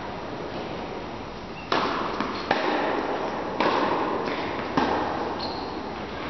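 Tennis ball being hit back and forth in a rally: four sharp strikes, roughly a second apart, starting a little under two seconds in, echoing in a large indoor tennis hall.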